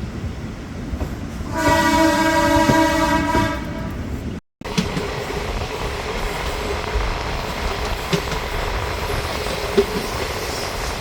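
Diesel electric multiple unit (DEMU) train's horn blowing one steady held note for about two seconds, followed by the train's steady running noise with wheels clicking over the rail joints.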